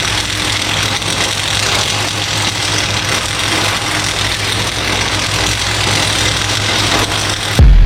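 A machine running steadily: a low hum under a broad, even hiss. A sudden loud thump comes near the end.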